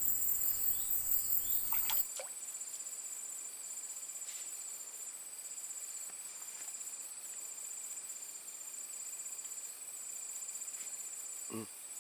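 Crickets shrilling steadily in a high, fast-pulsing trill. Louder rustling noise runs under it and cuts off abruptly about two seconds in, and a brief low sound comes near the end.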